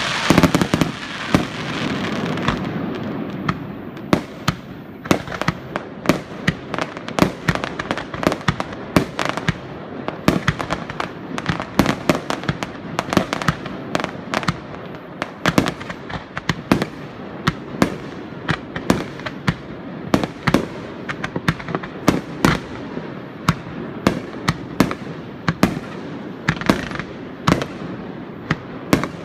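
Jiwari (ground-crack) fireworks going off: a rapid, irregular string of sharp bangs and crackling pops, several a second. There is a hissing rush under the bangs in the first few seconds.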